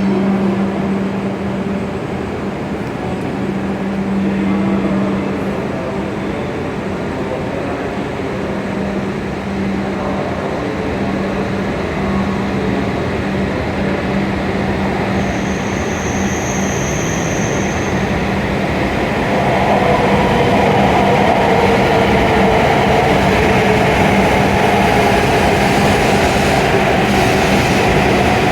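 Hokuriku Shinkansen train moving at the platform: a steady rumble with a constant low hum. It grows louder about two-thirds of the way in, as a higher motor whine comes in.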